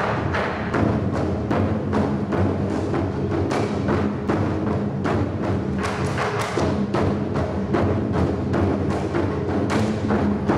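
Percussion ensemble playing a busy, steady rhythm of drum strokes, several a second, over ringing low pitched drum tones.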